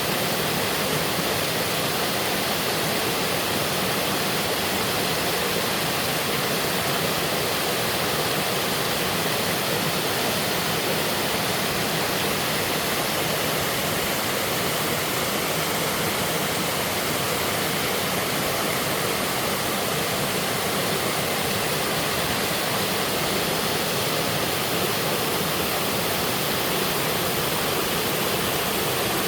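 Mountain waterfall pouring into a rocky stream: a steady, even rush of falling water.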